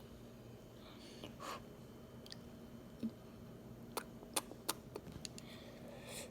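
Quiet sounds of a person eating instant ramen: faint chewing, with a few light clicks.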